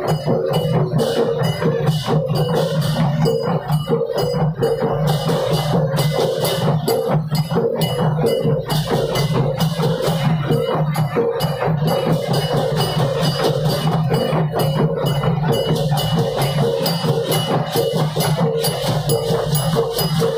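Massed Balinese okokan, large wooden bells with wooden clappers, clattering together in a dense, continuous rhythm, over a steady low ringing from many bells at once.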